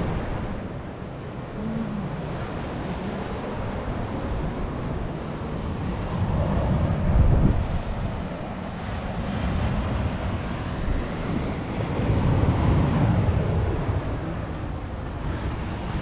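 Sea waves washing onto a pebbly shore, with wind buffeting the microphone; the surge swells loudest about seven seconds in and again around twelve seconds.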